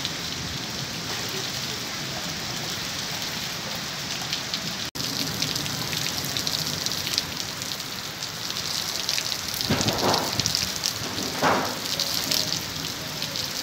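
Heavy rain pouring down, a steady dense hiss of rain on the ground and the awning. The sound drops out for an instant about five seconds in, and swells louder twice near the end.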